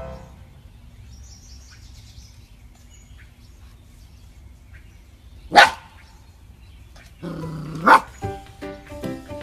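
A dog barks once sharply, then about two seconds later makes a longer drawn-out vocal sound that ends in a second loud bark. Music with short rhythmic notes comes in near the end.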